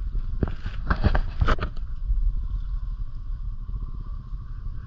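Off-road vehicle engine running steadily at low speed, with several knocks and rattles in the first couple of seconds.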